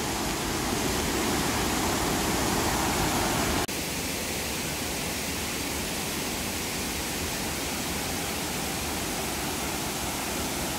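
Waterfall and river rapids giving a steady rushing of water over rock. The sound breaks off abruptly about a third of the way in and resumes slightly quieter.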